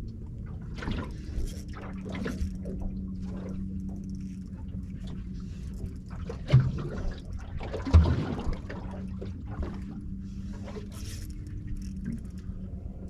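Water lapping and sloshing against a kayak, with a steady low hum from the kayak's motor running from about two seconds in until near the end. Two sharp knocks on the hull, about six and a half and eight seconds in, are the loudest sounds.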